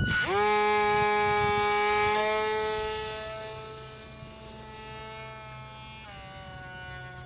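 Electric motor and rear-mounted folding propeller of a WLtoys F959S Sky King RC plane whining at high throttle. It spins up sharply at the hand launch, then fades as the plane climbs away, with the pitch dipping slightly about six seconds in.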